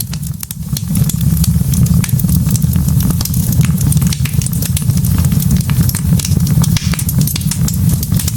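Log fire burning: many sharp crackles and snaps over a steady low rumble of the flames.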